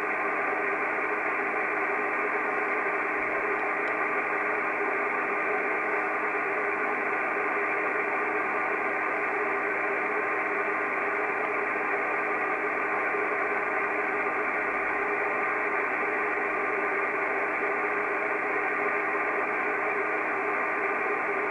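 Kenwood TS-680S transceiver on the 6-metre band at 50.148 MHz playing steady band hiss through its speaker with no station on frequency, the hiss cut off above the voice range. A few faint steady tones sit in the hiss.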